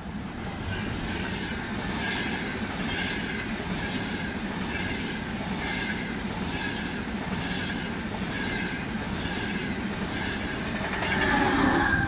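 ETR 500 Frecciarossa high-speed electric train passing through at speed: a steady rush of wheels on rails with a regular clickety-clack about twice a second, swelling louder near the end as the rear power car goes by.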